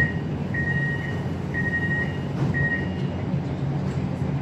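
MRT train door-closing warning beeps: a high beep repeating about once a second, three beeps of about half a second each, the last one shorter, over the steady low hum of the train.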